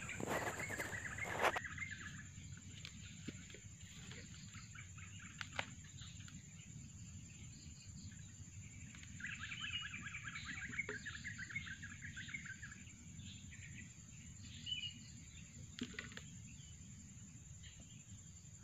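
Quiet open-field ambience: small birds chirping, with a rapid trill for a few seconds in the middle, over a steady high whine and a low background rumble, with a few soft clicks and rustles of vines being handled.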